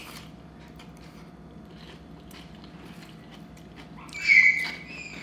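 Quiet mouth sounds of chewing a bite of rice noodles, then about four seconds in a loud, sharp crunch as a crispy fried pork crackling (kaep mu) is bitten into.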